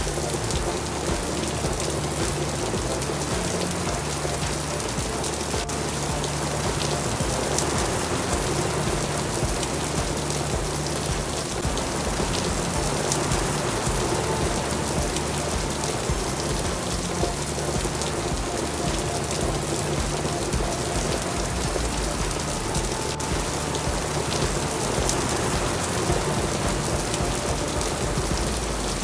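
Steady rain falling, an even hiss throughout, with low held music notes underneath.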